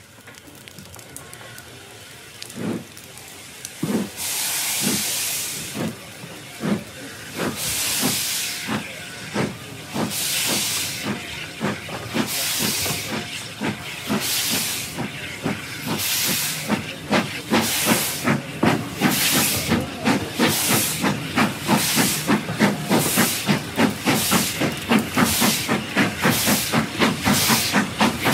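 BR Standard Class 4 steam locomotive starting away, heard from the front carriage: after a couple of quiet seconds, chuffs and bursts of hissing steam begin and come faster and louder as the train gathers speed.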